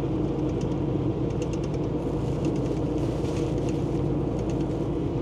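Steady drone of a semi truck's diesel engine and road noise heard from inside the cab while driving, with a few faint ticks over it.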